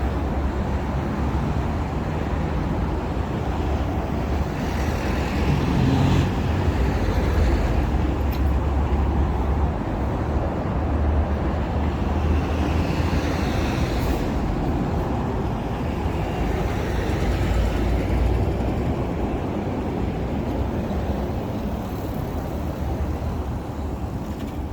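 City road traffic: a steady rumble of cars and heavier vehicles going by, swelling as vehicles pass about five seconds in and again about twelve seconds in.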